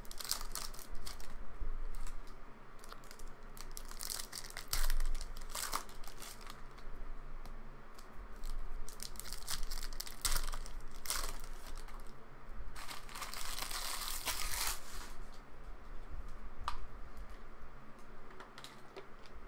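Plastic-foil wrappers of Panini Mosaic football card packs being torn open and crinkled in the hands: irregular crackles and rips, with one longer tear lasting about two seconds about two-thirds of the way through.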